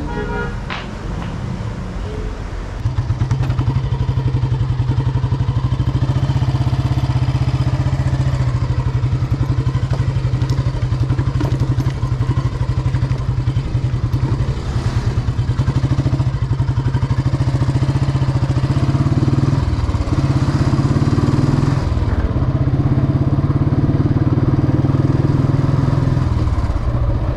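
Royal Enfield Bullet Standard 500's single-cylinder engine running as the bike is ridden, heard from the rider's seat. The steady, evenly pulsed engine note comes in loud about three seconds in and drops briefly twice about two-thirds of the way through.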